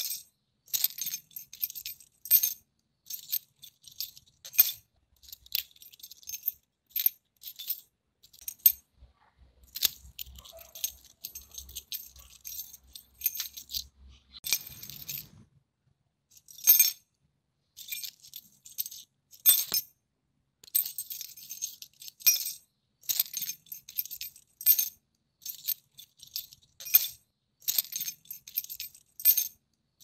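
A bunch of metal keys jangling and clinking, shaken in short bursts again and again with brief pauses between.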